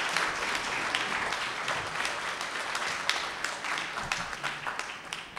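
Audience applauding, dense clapping that thins out and fades near the end.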